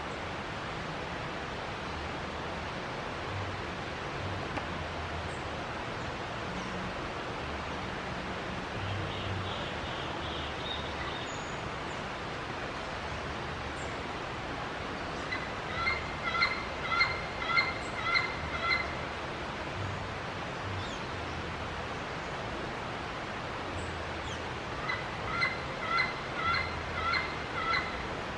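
A bird calling in two bouts of six or seven evenly spaced clear notes, about two a second, over a steady hiss of background noise, with a softer short series of notes earlier.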